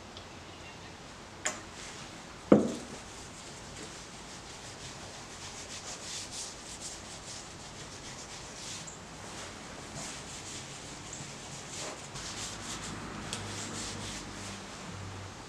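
Gloved hand rubbing liquid finish into a wooden tray top, a run of quick back-and-forth swishing strokes over the wood. A sharp knock sounds about two and a half seconds in, just after a lighter click.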